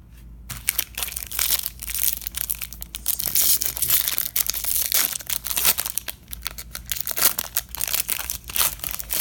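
Wrapper of a baseball card pack being torn open and crinkled while the cards are worked out of it, a dense run of crackling that starts about half a second in.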